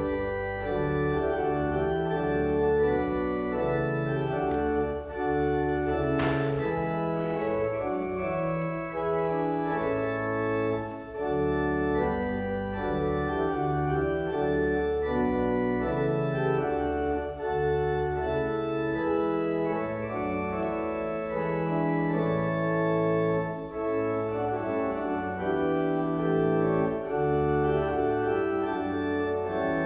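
Church organ playing slow, sustained chords as a closing voluntary after the dismissal.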